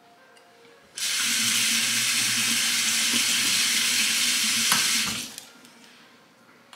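Kitchen faucet running into a sink for about four seconds, turned on suddenly about a second in and shut off around five seconds.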